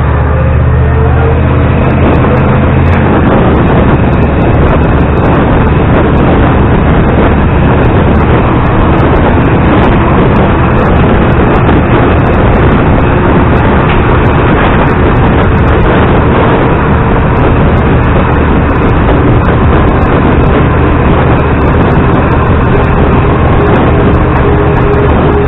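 Loud wind rushing and buffeting over a microphone held out of the window of a moving LiAZ-677M bus. The bus's engine drone shows under it in the first few seconds, then is buried by the wind.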